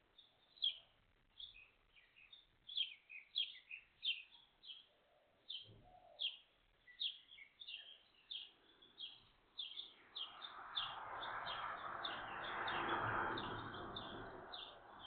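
Small birds chirping in short, sharp notes, a few each second. From about ten seconds in, a rushing noise swells and then eases off underneath the chirps.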